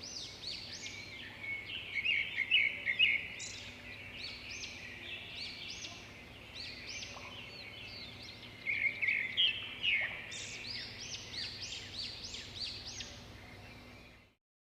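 Many small birds chirping and calling at once, a dense chorus of short, quick overlapping notes, loudest in bursts about two seconds in and again around nine to ten seconds. It cuts off suddenly near the end.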